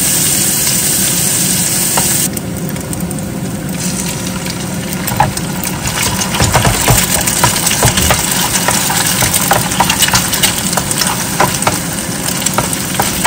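Diced bacon sizzling in a nonstick frying pan, stirred with a wooden spatula, then an egg frying in the bacon fat being broken up. The steady sizzle dips for a moment about two seconds in, and from about five seconds in it is joined by busy crackling and the scrape of the spatula on the pan.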